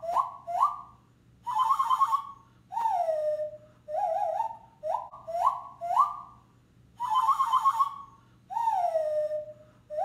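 Zabelê, a small wooden nose flute blown through the nose with the open mouth as its resonator, playing a breathy whistle in short phrases: quick upward swoops, a fluttering trill and a slow downward slide, the pattern played twice. The pitch bends as the mouth opens and closes: the wider the mouth, the lower the note.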